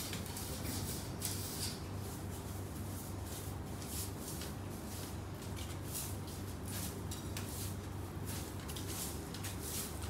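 Broom sweeping a floor: a run of uneven brushing strokes over a steady low hum.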